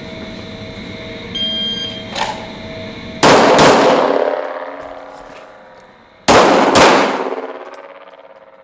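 A shot-timer beep, then a Glock 17 9mm pistol fired in two pairs: two quick shots, a pause of about three seconds, and two more, each shot echoing long in the indoor range. A steady hum runs under the first part.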